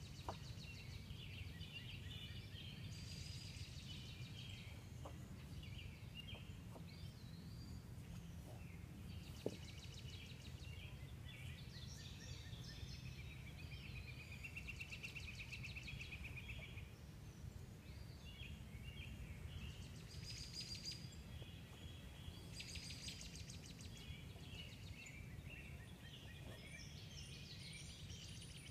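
Songbirds singing and calling: chirps and fast trills, over a steady low rumble. A single sharp click about nine and a half seconds in.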